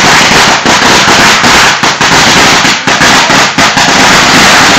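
A string of firecrackers going off in a rapid, unbroken rattle of bangs, very loud.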